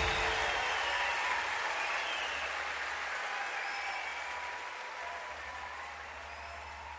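Live concert audience applauding as the song ends, the applause gradually fading away.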